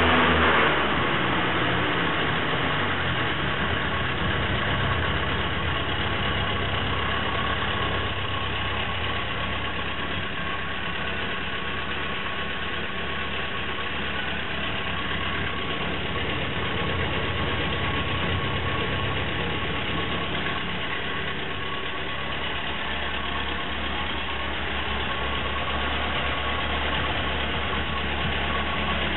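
Ferguson TED20 tractor's four-cylinder engine dropping from a brief rev to a steady idle about a second in, running evenly after being tuned.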